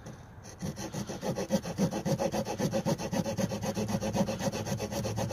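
Small folding saw blade of a Victorinox Swiss Army Camper pocket knife cutting wood in fast back-and-forth strokes, starting about half a second in.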